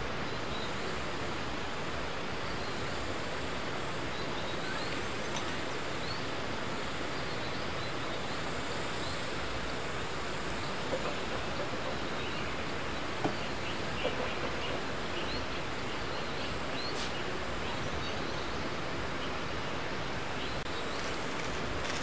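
Steady rushing of a mountain river, with faint short bird chirps scattered over it and a few soft knocks about halfway through.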